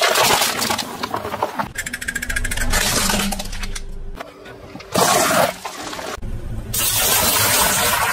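Car tyres rolling over and crushing objects in a run of short separate clips: a wet squishing and scattering of water beads, then crackling and a sudden loud crack of plastic toys breaking, and a long stretch of plastic crunching near the end.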